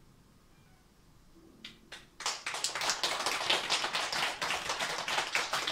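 Near silence as the performance ends. Then two lone claps about a second and a half in, and a small audience breaks into applause about two seconds in.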